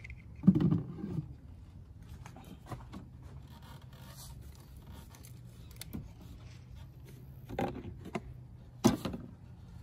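A low thump about half a second in, then knocks and scrapes near the end as an emptied plastic quart bottle of motor oil is lifted out of the engine's oil filler neck.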